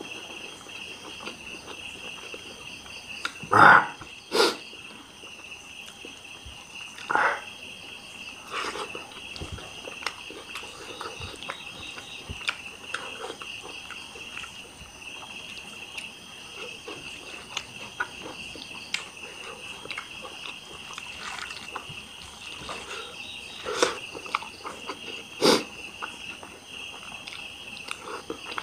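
Steady, high-pitched chirring of night insects such as crickets. Over it come a handful of short, louder eating noises from someone eating rice by hand, the loudest about four seconds in and again near the end.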